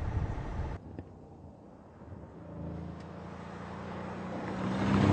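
Mercedes-Benz C63 AMG Estate's V8 engine running at speed, its note growing steadily louder as the car approaches, after a sudden cut from a louder low rumble under a second in.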